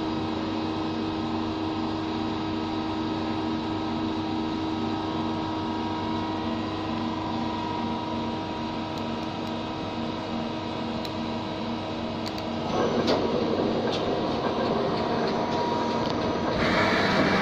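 Steady hum and whir of a powered-up Takisawa TC-4 CNC lathe, with several steady tones and a low pulsing note. About thirteen seconds in a louder rushing noise joins, with a few clicks.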